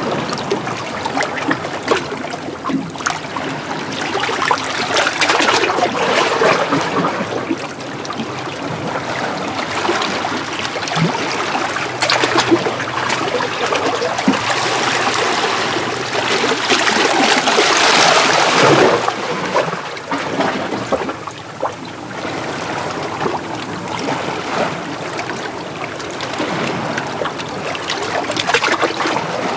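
Small North Sea waves washing in and out over coastal rocks. The wash swells twice, most strongly a little past halfway, then falls back.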